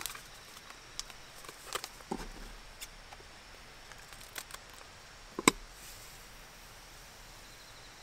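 Small scattered clicks and taps from a seasoned-salt container being handled and opened, with one sharp click about five and a half seconds in.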